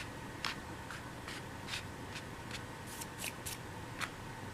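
Scattered soft clicks and rustles of hands handling small things, roughly one or two a second, over a faint steady hiss.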